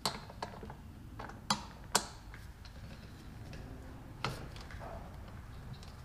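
Scattered metallic clicks and clinks of a socket wrench and extension being fitted to and worked on the 10 mm bolts holding a small engine's fuel tank, the two sharpest about a second and a half and two seconds in.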